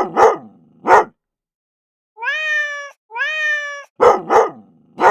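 Dog barks, three short ones at the start and two near the end, with two identical meowing cat calls between them. The parts are separated by dead silence, like an edited sound-effect sequence.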